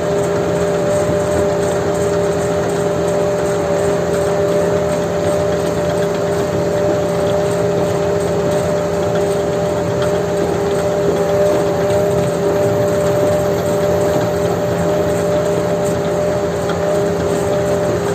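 Heavy farm machinery's diesel engine running steadily at constant speed, with a steady whine over the engine note.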